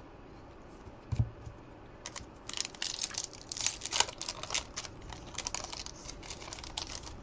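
A stack of trading cards being flicked through by hand: a quick run of light clicks and snaps as the cards slide past one another, busiest in the middle. There is a single soft knock about a second in, before the flicking starts.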